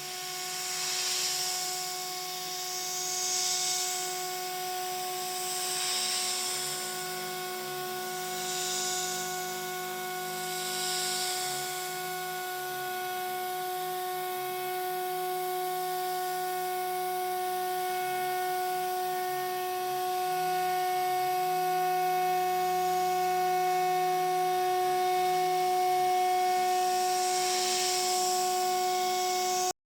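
Homemade PrintNC CNC mill's spindle whining at a steady pitch while milling aluminum. A high hiss swells and fades about every two and a half seconds early on. The sound grows slightly louder about two-thirds of the way in and cuts off suddenly just before the end.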